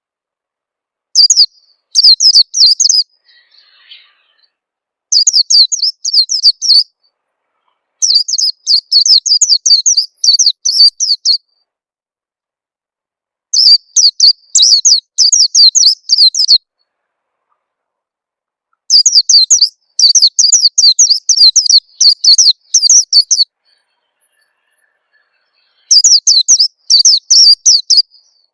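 White-eye (pleci) song: six bursts of rapid, high twittering chirps, each lasting one to four seconds, with pauses of a few seconds between them.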